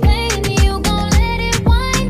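Background music with a steady beat, about two beats a second, and a sung melody.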